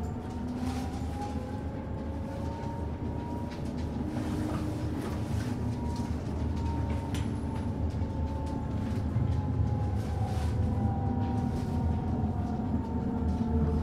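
Inside a Forchbahn metre-gauge electric train running on street track: steady low rumble of the wheels on the rails, electric traction motors whining with a pitch that rises and then falls, and scattered clicks and knocks from the running gear.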